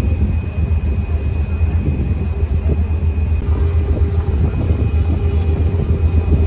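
Steady, loud low engine rumble with a thin high whine over it, and a fainter lower hum joining about halfway through.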